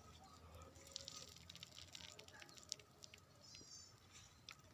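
Near silence: faint scattered ticks and rustles, with one short high chirp about three and a half seconds in.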